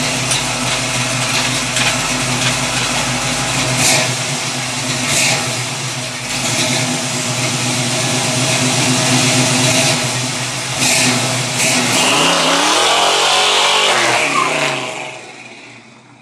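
1977 Chevrolet Camaro's engine running at idle through its new exhaust, with a few short throttle blips. About twelve seconds in the car pulls away, the exhaust note rising and then falling as it fades out.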